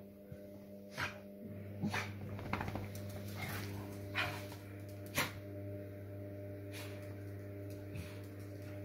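A small fluffy dog gives short, sharp barks and whimpers while playing with a kitten. The noises come singly, a handful of times, over a steady low hum.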